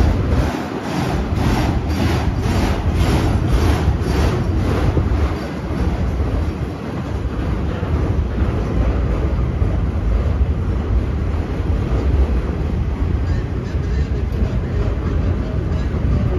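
Freight train of enclosed autorack cars rolling past close by: a loud, steady rumble of wheels on rail. Regular clicking of the wheels, about two to three a second, stands out through the first five seconds, then fades into the rumble.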